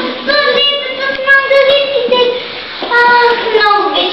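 A child singing a melody in a high voice, holding notes and moving between pitches.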